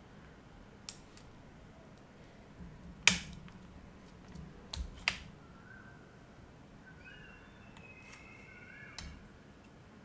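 A few sharp clicks from a laptop's copper heatsink being worked loose and lifted off the motherboard, the loudest about three seconds in. Old thermal paste stuck to the CPU and GPU is holding the heatsink down.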